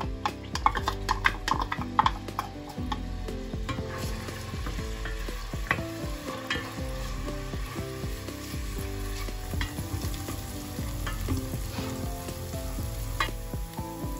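Chopped onions sizzling in hot olive oil in a stainless steel pressure cooker pot while a wooden spoon stirs them, scraping and tapping against the pot. The taps and clicks come thick in the first few seconds as the oil goes in, then the frying settles to a steady sizzle with an occasional tap of the spoon.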